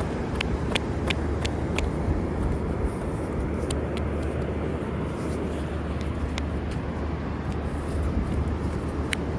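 Steady low rumble of surf and wind on the microphone at a sea beach, with sharp light ticks: a quick run of about five in the first two seconds, then a few scattered ones.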